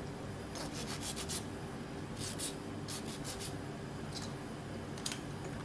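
Short scratchy strokes, several in quick runs, as flat green amarappayar beans are slit lengthwise and cut into strips.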